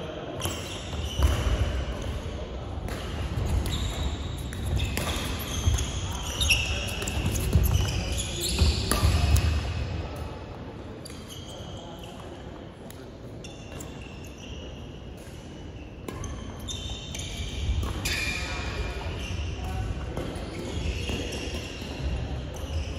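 Badminton play on a wooden sports-hall court: sharp racket-on-shuttlecock hits, squeaking shoes and thudding footsteps, echoing in a large hall. The play goes quieter in the middle and picks up again later.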